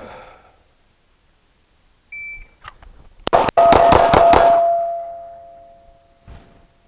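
Shot timer's short start beep, then about a second later six rapid pistol shots roughly a fifth of a second apart from a Phoenix Drake 9mm, fired as a Bill Drill with the first shot in double action. Struck steel rings after the shots and fades out over about two seconds.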